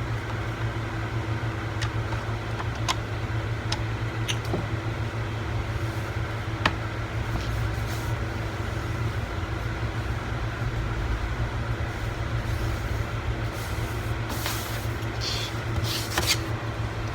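Scattered sharp clicks and taps of hand work on a laptop's plastic case, with a few short scraping rustles near the end, over a steady low hum.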